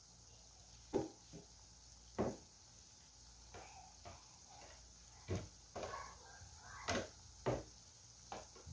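Strips of stik bawang dough deep-frying in oil over low heat: a faint steady sizzle broken by about ten sharp pops and crackles at irregular intervals.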